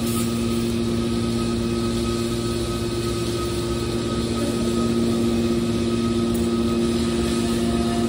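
The hydraulic power unit of a scrap metal baler running steadily: an electric-motor-driven pump giving a constant hum with a few steady tones, a little louder in the second half.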